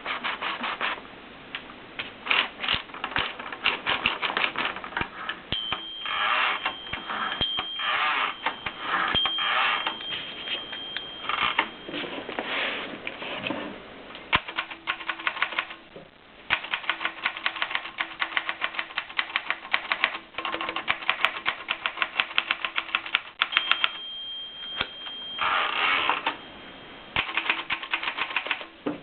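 Klein Adler manual typewriter being typed on: runs of quick keystroke clacks with short pauses between them.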